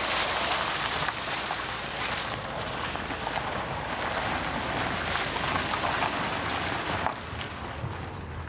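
Car driving along a rough track: a steady rush of engine and tyre noise, which drops a little quieter about seven seconds in.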